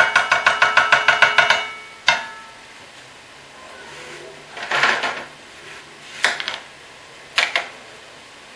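Metal utensil rapping fast against a metal pan, about eight ringing knocks a second for nearly two seconds, then one more knock. A scrape and a couple of short clicks follow.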